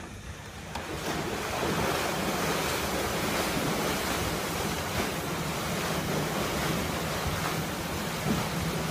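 Paddle wheels of the 1901 Lake Lucerne paddle steamer Uri churning the water as the steamer gets under way: a steady rushing of water that swells about a second in and holds.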